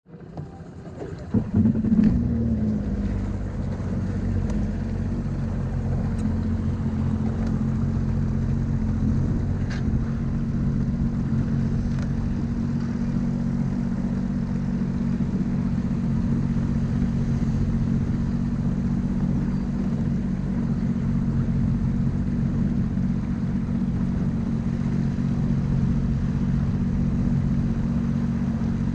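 Sea-Doo personal watercraft engine running at low speed, close to the microphone. It comes in over the first two seconds with a brief rev, then runs steadily.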